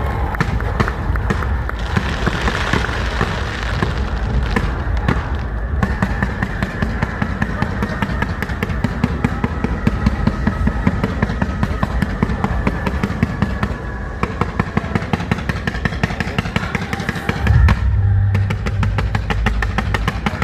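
A fireworks display firing dense rapid reports and crackle over music. Near the end it breaks into a fast, even run of bangs, several a second.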